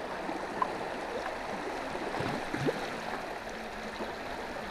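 Steady rush of river water flowing past the boat, with a couple of short rising squeaks a little past halfway.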